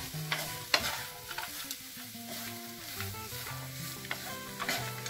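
Wooden spatula stirring chopped pork belly and onions in a frying pan without oil, with a low sizzle and a few sharp scrapes and knocks against the pan.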